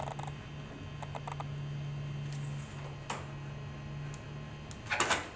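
The Tek RMD's rear tailpiece being slid out of its mount: a low steady groan of the bar sliding, a few light clicks, and a louder clatter about five seconds in.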